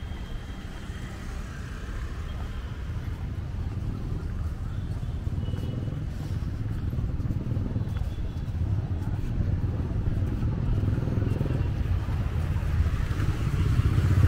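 Road traffic with motorcycles and scooters passing, the engine rumble growing louder toward the end as a motorbike comes close.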